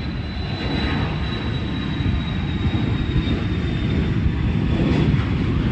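Dassault Falcon 900 trijet's turbofan engines during its landing roll: a steady deep rumble with a thin high whine that slowly falls in pitch.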